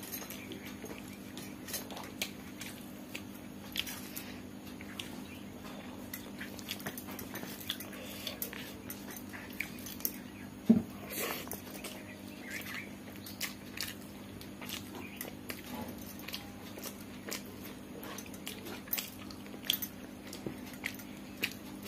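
Close-up eating sounds: a person chewing rice and dal, with fingers squishing and mixing rice on a banana leaf, giving many small wet clicks and smacks, the loudest a sharp click about halfway through. A steady low hum runs underneath.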